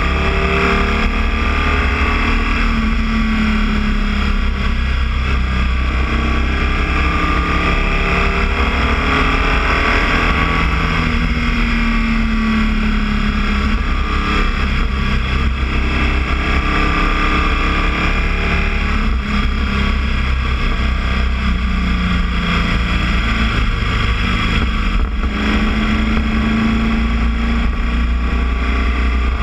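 Boxer flat-twin motorcycle engine running while the bike is ridden, its note rising and falling several times with the throttle and gears, over a steady rushing noise.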